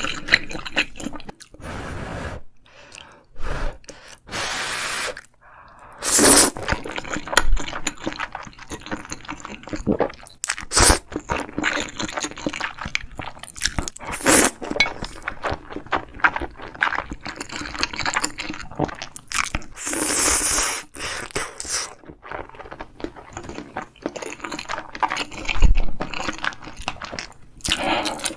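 Close-miked chewing of tteokbokki: wet, sticky smacks and many short clicks of mouth and utensils, with a few longer noisy swishes of about half a second.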